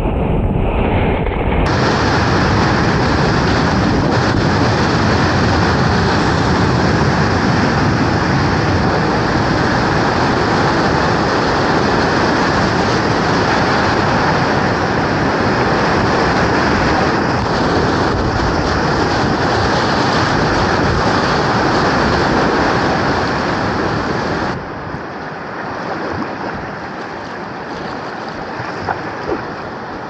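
Loud, steady roar of whitewater pouring down a waterfall and rapids, heard up close from the kayak. About 25 seconds in it drops to a quieter rush of water, with a couple of sharp knocks near the end.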